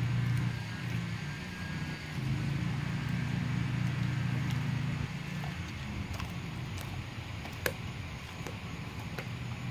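Blue Bay Shepherd wolfdog chewing a piece of raw chicken, with sharp crunches of bone in the second half and one louder crack about three quarters of the way through. A low steady hum sits underneath, dropping away about halfway and coming back near the end.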